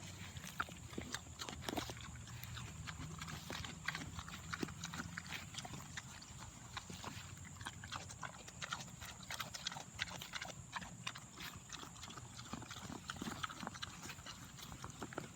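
A pig chewing cucumber with quick, irregular crunching and smacking clicks.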